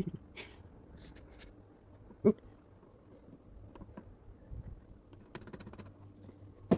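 Faint, scattered clicks and scrapes of hand tools and metal parts being handled during motorcycle repair work, with one sharp knock about two seconds in.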